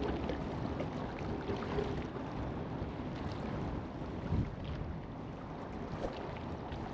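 Steady wind on the microphone over water lapping at a riverbank, with a low rumble underneath.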